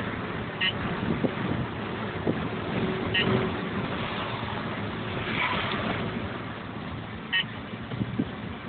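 Valentine One radar detector sounding three short, bright alert chirps a few seconds apart: false alerts, over steady road and engine noise inside a moving car.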